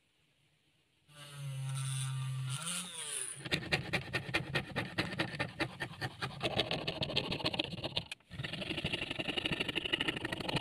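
Hand fret saw cutting a thin 1.5 mm PVC sheet: a fast, even rasp of about three to four strokes a second, with a brief break near the end. Before the sawing starts, a short steady hum rises in pitch and stops.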